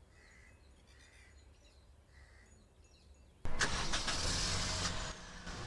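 Quiet outdoor background with a few soft high chirps. About three and a half seconds in, a car engine starts with a sudden loud burst of noise, then keeps running at a lower level.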